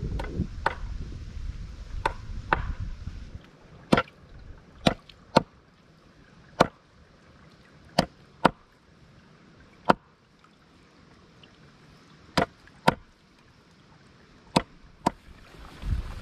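A large knife chopping raw meat on a wooden board: sharp single chops or quick pairs with pauses of one to two seconds between them.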